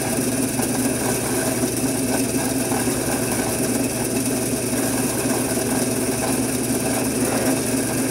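Motor-driven Scotch-Brite abrasive wheel running steadily against aluminum, a constant motor hum with a scrubbing hiss as it puts a textured finish on the part.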